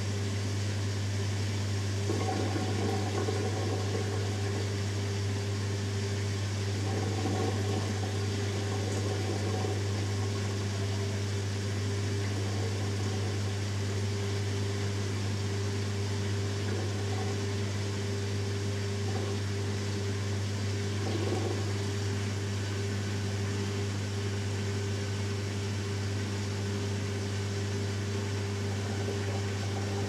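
Hoover Dynamic Next washing machine's drain pump running with a steady hum, with a few brief gurgles of water as the drum is pumped out before the second rinse of the Wool & Silk cycle.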